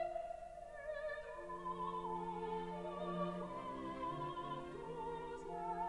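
Background classical music in an operatic style: long held notes with vibrato over low sustained accompaniment.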